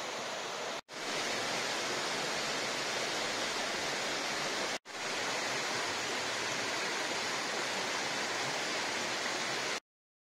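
Mountain waterfall and rocky stream rushing steadily. The sound cuts out for an instant twice, at the edits, and stops abruptly near the end.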